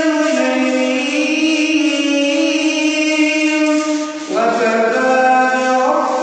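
A man chanting Quran recitation in a melodic style, holding one long note for about four seconds, then pausing briefly for breath and starting a new phrase whose pitch steps up and down.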